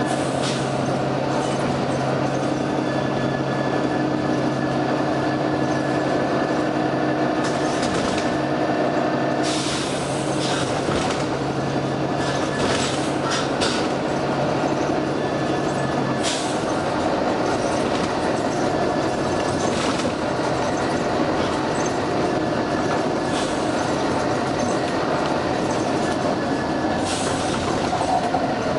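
Volvo B9TL double-decker bus running, with a steady low hum that stops about halfway through. Several short hisses from its compressed-air system break through, including a pair near the end.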